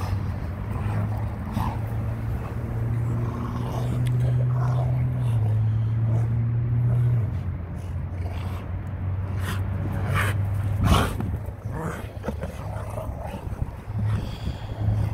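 Rottweilers play-growling in a low, steady rumble while tugging against each other, with a brief sharp knock about eleven seconds in.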